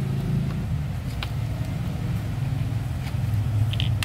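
A steady low rumble, like a motor or engine running, with a few faint clicks.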